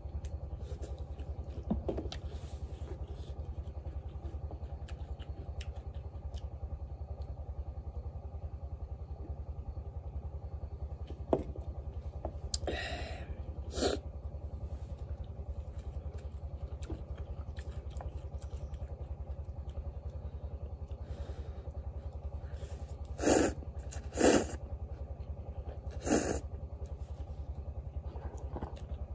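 A small engine runs steadily with a fast low pulse, while noodles are slurped loudly several times, twice around the middle and three times near the end.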